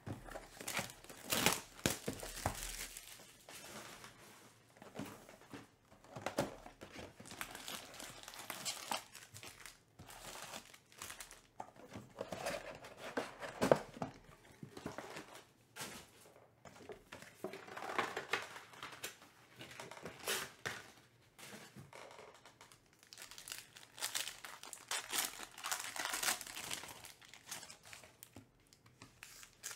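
Hands opening a Topps Pristine Baseball trading-card box: the cardboard box and its flaps scraping and flexing, and foil card packs rustling and crinkling in irregular bursts, with some tearing of packaging.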